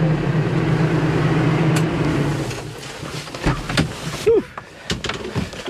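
Kubota LX2610 compact tractor's three-cylinder diesel engine running steadily, then dying away about two and a half seconds in. After it come scattered light clicks and knocks.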